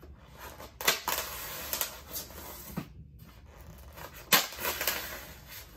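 Scraping and rubbing noises from a taped polystyrene foam packing case being worked open along its seam, with two sharp, loud scrapes, about a second in and just after four seconds.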